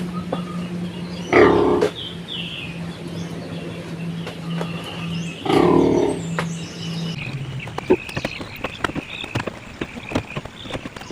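A pig letting out two loud, harsh calls about four seconds apart, over a steady low hum that stops about seven seconds in, followed by scattered clicks and knocks.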